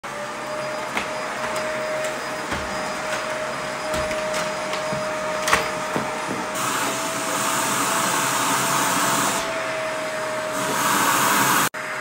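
Upright vacuum cleaner running, a steady motor whine over the rush of air, with a few light knocks in the first half. The airflow hiss swells louder for a few seconds past the middle, and the sound cuts off abruptly near the end.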